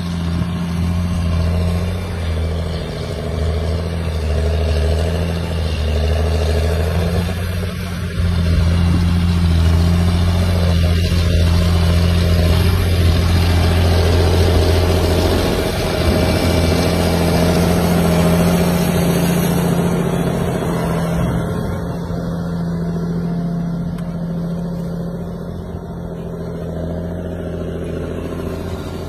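John Deere 8335R tractor's 9.0-litre six-cylinder diesel running steadily under load while pulling a wide disc harrow through the soil. A deep, even engine note, its lowest part fading somewhat about halfway through.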